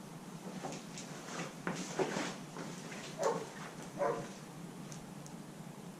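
Dogs barking outside, two short barks about three and four seconds in, over a few brief rattles and clatters of things being handled in the first two seconds.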